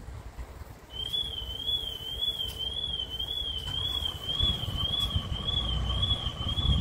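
An electronic warning tone warbling steadily up and down at a high pitch, about two wobbles a second, starting about a second in; a fainter, lower steady tone joins about halfway. Wind buffets the microphone underneath.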